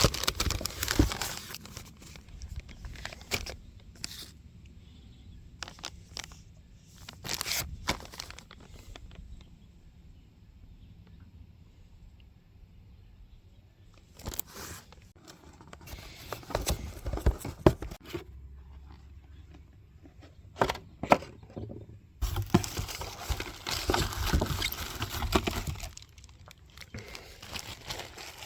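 Packaging being handled and opened: plastic and cardboard crinkling, rustling and tearing in irregular bursts, with sharp clicks and taps. It goes quieter for a few seconds in the middle, and there is a dense stretch of crinkling near the end.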